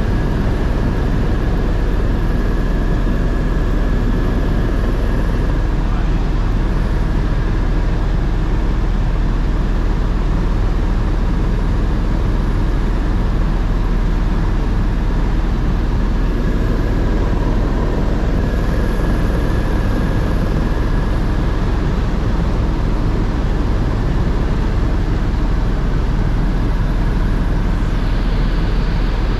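Helicopter in cruise flight heard from inside the cabin: the rotor and engine make a loud, steady, unbroken drone, with a faint steady whine riding above it.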